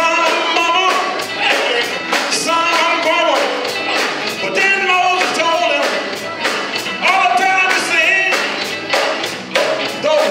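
Live gospel music: a male lead singer sings into a microphone over a band with electric guitar and a steady drum beat, amplified through the church's sound system.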